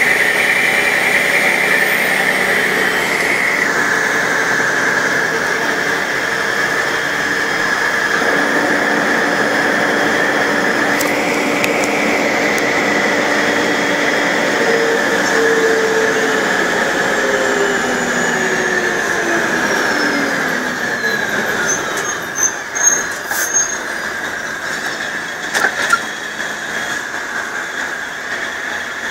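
Mercedes-Benz O-500 MA articulated bus with a Voith DIWA automatic gearbox running, a steady high whine over the engine. Past the middle the engine's pitch falls away, and a few knocks follow near the end. The rough note is called 'ronco podre' (rotten rumble), which the uploader suspects is a holed exhaust.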